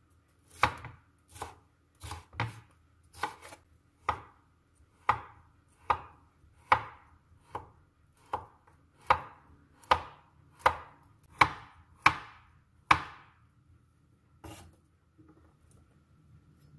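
Chef's knife chopping on a wooden cutting board, cutting red bell pepper and then sausage into slices: a steady run of sharp knocks, roughly one every three-quarters of a second. The cuts stop about 13 seconds in, with one last fainter knock a second or so later.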